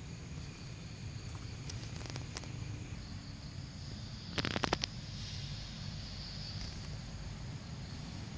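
Forest ambience with a steady high insect hum, broken about four and a half seconds in by a quick run of five or so sharp clicks or crackles, with a few fainter clicks earlier.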